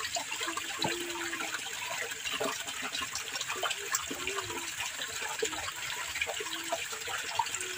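Water running and trickling in a small irrigation channel: a steady, crackly splashing hiss, with a few faint, short low tones underneath.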